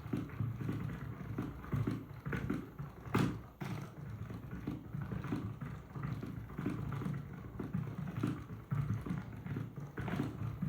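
Typing on a Keychron B1 Pro, a low-profile scissor-switch keyboard: a steady run of keystrokes, with one louder stroke about three seconds in.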